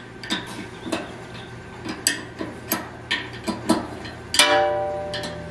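A combination wrench clicking and clinking on the tin-plated bronze bolts of a Frigidaire Multicold evaporator float header as they are loosened in turn: light metal ticks every half second or so. About four seconds in, a louder metal clank rings on with a clear tone for about a second.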